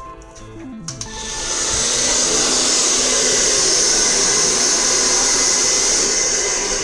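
Handheld blow dryer switched on about a second in, then running steadily with a loud, even rush of air. Faint background music is heard before it starts.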